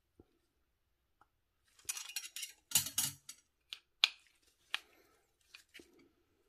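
Metal tools and bicycle hub parts clicking and scraping while a hub part is tightened in place: a scraping rattle about two seconds in, then several sharp single clicks.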